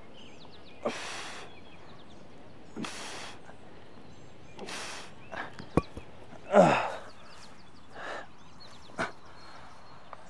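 A man breathing out hard about every two seconds while straining through a kettlebell ab exercise. A sharp knock comes just before six seconds in, then a loud groaning sigh that falls in pitch.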